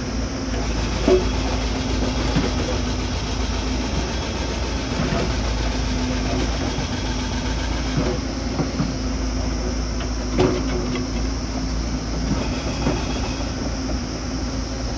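Heavy earthmoving machine's engine running steadily under load, with a few scattered metallic clanks.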